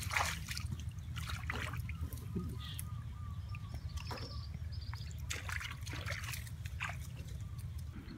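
Shallow muddy water sloshing and splashing in irregular strokes as a hand works in it and feet step through the wet mud.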